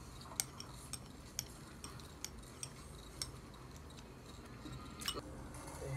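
Metal spoon clinking lightly against a small glass bowl of cereal and milk: about half a dozen faint, scattered taps.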